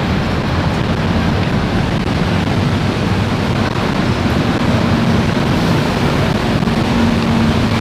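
Steady low rumble of diesel buses idling in a covered bus interchange, with a low hum that grows a little stronger about five seconds in.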